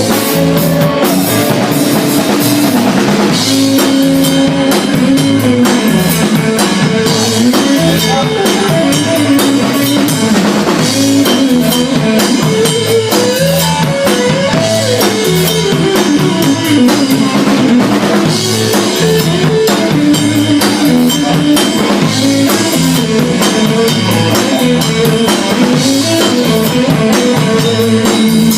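Live rock band playing an instrumental break on drum kit, bass and guitar, with no singing.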